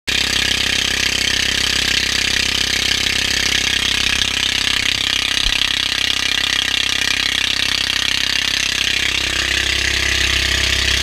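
Motorized outrigger boat's engine running steadily under way, loud and unchanging.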